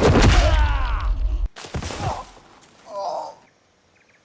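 Film fight-scene audio: heavy hits with a man's strained cries for about a second and a half, then two shorter grunts or groans.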